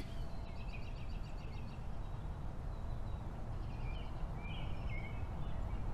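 Faint background ambience of small birds chirping, two short runs of quick high chirps, over a steady low hum.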